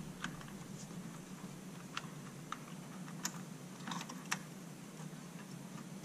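Faint scattered clicks and taps, about half a dozen, from hands handling a laptop-size SO-DIMM memory module as it is released from its slot on the HP T620 Plus thin client's board and lifted out.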